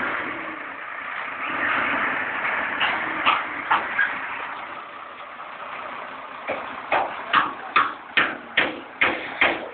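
Liugong 835 II wheel loader's Cummins QSB 5.9 diesel engine running at idle. In the second half a regular sharp tapping of about two or three a second comes in and is the loudest sound.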